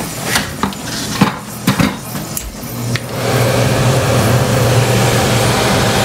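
A few sharp clicks and knocks of parts being handled as the float-switch setup is put back together. From about three seconds in, a steady hum and rush of air from the HVAC air handler running.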